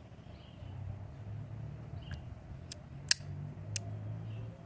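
Rossi .38 Special revolver's cylinder being swung shut and latched: four sharp metallic clicks over about two seconds, the loudest a little past three seconds in.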